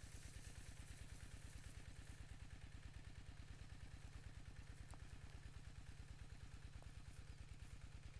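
A small engine idling faintly and steadily, with an even low putter that does not change speed.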